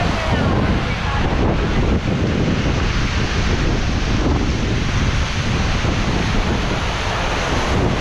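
Waterfall close to the microphone: a loud, steady rush of falling water, with wind noise buffeting the microphone.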